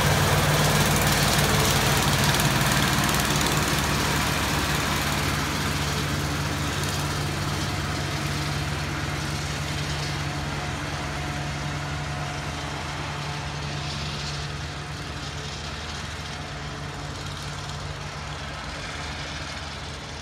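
Engine of a small rail-mounted track maintenance machine towing hopper carts, running steadily as it passes and moving away along the track, its sound slowly fading.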